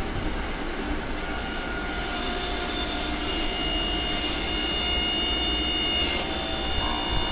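Stainless-steel commercial carrot juice extractor running steadily as a carrot is pressed down its feed chute, a continuous motor hum with a thin high whine that grows clearer about halfway through.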